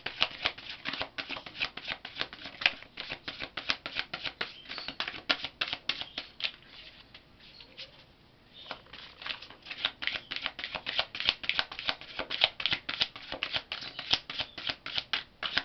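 A deck of tarot cards shuffled by hand: a rapid run of light card flicks and slaps, which stops briefly about halfway through and then starts again.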